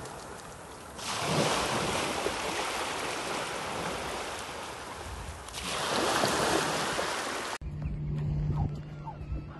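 Small waves washing in over the sand at the water's edge, a loud rushing that swells twice and then cuts off abruptly near the end.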